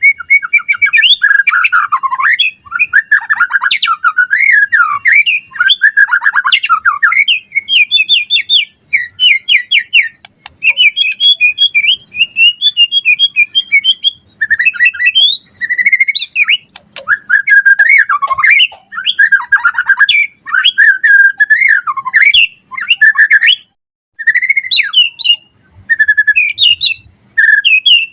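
White-rumped shama singing a fast, varied song of whistles, trills and chattering notes. It comes in quick phrases with short breaks between them.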